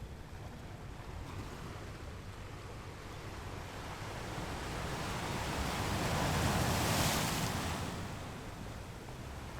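Ocean surf on a beach: a wave swells, breaks about seven seconds in with a hiss, and eases back, over a steady low rumble.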